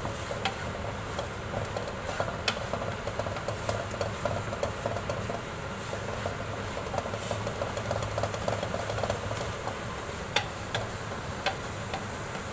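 Spatula stirring and scraping carrot halwa in a kadhai, with many light clicks against the pan and a few sharper knocks, over a steady low hum.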